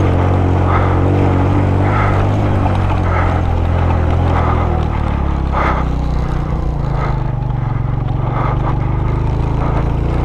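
Suzuki GS150SE's single-cylinder four-stroke engine running at low speed up a rocky dirt track, its pitch dropping about halfway through. Repeated short rattles as the bike jolts over stones.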